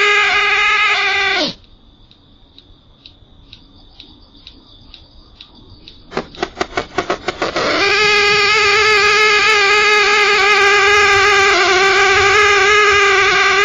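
A loud, steady pitched drone with many overtones, which the recorder's owner likens to a pig's squeal and says cannot be heard by ear. It cuts out about one and a half seconds in, leaving only a faint high whine with a soft regular ticking. Around six seconds in it comes back as a fast run of pulses, then settles into the steady drone again.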